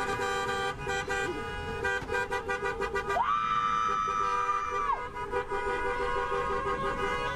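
Several vehicle horns sounding together in long, steady blasts, with one louder horn from about three seconds in, held for about two seconds, its pitch sliding up as it starts and down as it stops.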